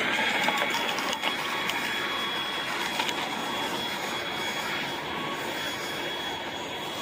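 Handheld leaf blower running, a steady rushing blast with a thin high whine, blowing debris off the road; it eases off about five seconds in.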